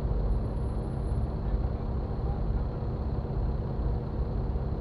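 Jeep Wrangler engine idling while stopped, a steady low rumble with a faint even hum, picked up by a camera mounted on the hood.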